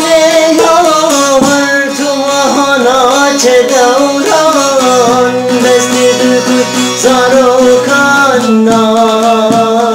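Bağlama (long-necked Turkish/Kurdish saz) strummed and plucked in a folk melody, with a man singing long, ornamented held notes over it.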